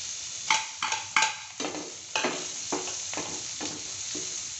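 Diced onion and garlic sizzling in hot oil in a stainless steel pot, with a run of metallic knocks and clinks against the pot as a steel ladle stirs. The loudest, ringing clacks come in the first second or so, then lighter knocks about twice a second.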